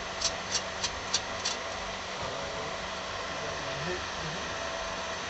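Steady running noise inside an Indian Railways third-AC coach of a moving express train. A quick run of sharp ticks, about four a second, comes in the first second and a half.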